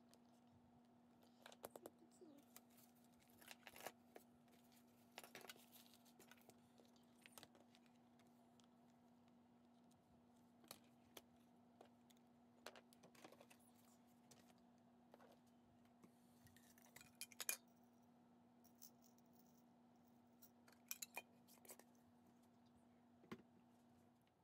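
Faint handling of a spiral-bound notebook and small desk items: scattered light clicks and taps, with a brief rustle about 17 seconds in, over a steady low hum.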